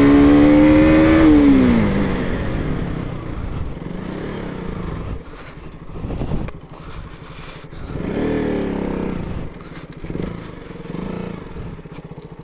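KTM RC 200's single-cylinder four-stroke engine revving up under acceleration. After about a second and a half the pitch falls away as the throttle is closed. It then runs low and pulsing near idle, with a short rise in revs about eight seconds in.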